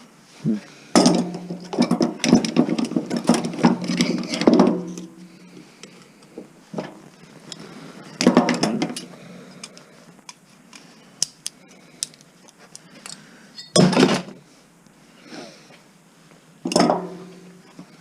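Metal clanking and clattering from a stereo's power transformer and sheet-metal chassis being pried and handled with tools. There is a long spell of rattling, ringing clanks at the start, then shorter clanks about every few seconds.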